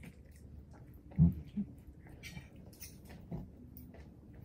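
Close-up eating sounds: chewing and mouth noises with scattered small clicks and taps of a fork on food and a plastic takeaway container, and one louder low thump about a second in.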